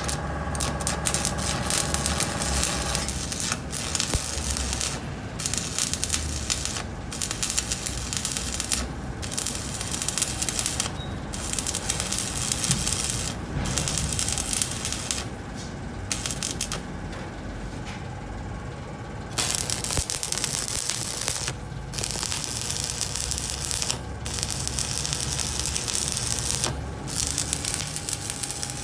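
Electric arc welding steel floor plate onto a truck bed: a steady crackle in runs of one to three seconds, broken by short pauses between welds, over a steady low hum.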